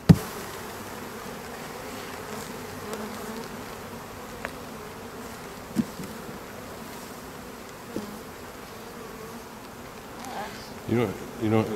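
Steady buzzing of many honeybees flying around open hives. There is a sharp knock at the very start and two fainter taps later.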